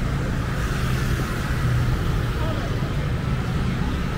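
Busy street ambience: a motor scooter's engine running close by at low speed, a steady low hum, with people talking faintly in the background.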